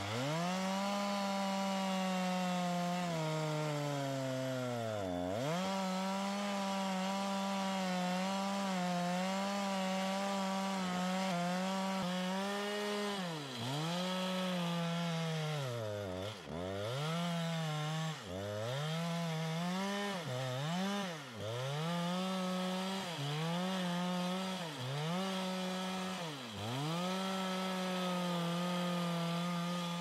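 Two-stroke petrol chainsaw at full throttle cutting through a thick log. The engine note holds high through the long cut; in the second half the throttle is let off and squeezed again every second or two, the engine dropping briefly toward idle each time.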